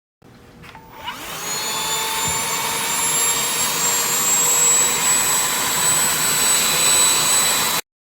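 Shark CH951 UltraCyclone cordless handheld vacuum switched on with a click about a second in, its motor spinning up to a steady high whine over rushing air, then cutting off abruptly near the end.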